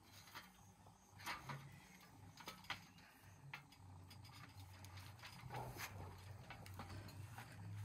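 Wooden stirring stick knocking and scraping against a metal cooking pot as thick maize-meal ugali is worked over the heat: faint, irregular knocks.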